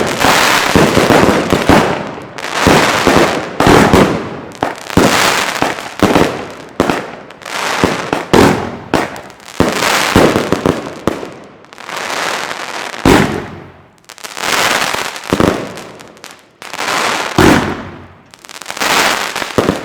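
Pyrocentury Mad Dog firework battery firing: a steady string of loud shots and bursts, roughly one a second, each trailing off in a noisy crackle before the next.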